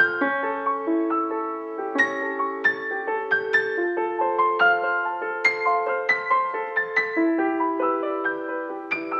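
Solo piano playing a slow, gentle piece: single notes and chords struck one after another, each ringing on and fading.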